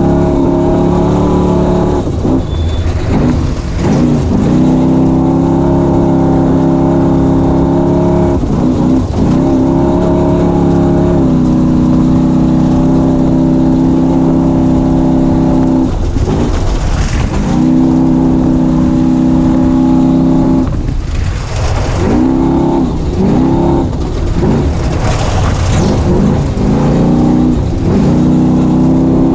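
Off-road race vehicle's engine running hard at high, steady revs. Its note dips and climbs back again several times as the throttle is lifted and reapplied, with a few short bursts of rushing noise.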